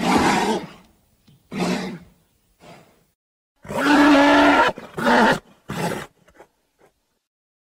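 Gastonia dinosaur sound effects: a string of short roars and grunts, six or so, the longest about a second long near the middle, ending a second before the end.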